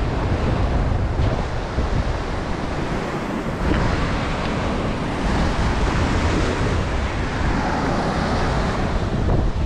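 Surf breaking and washing over a rocky lava shoreline, with wind buffeting the microphone in a low rumble.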